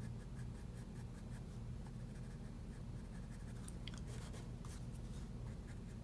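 Graphite pencil scratching lightly on paper in short, repeated shading strokes, over a steady low hum.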